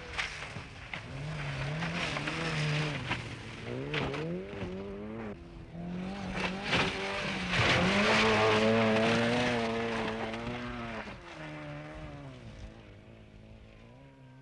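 Mini Cooper rally car's four-cylinder A-series engine driven hard, revving up and dropping back through several gear changes. It then holds a high steady note and fades away near the end.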